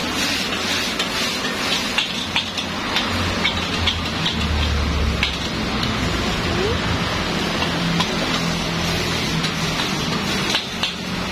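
A metal spatula scrapes and clinks irregularly against a wok as kwetiaw fried with egg and vegetables is tossed over a gas flame. A steady frying sizzle runs underneath.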